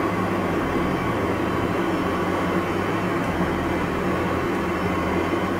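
Steady simulated jet engine and airflow noise from a Boeing 737 flight simulator's cockpit sound system on final approach: an even rushing drone with a constant hum underneath.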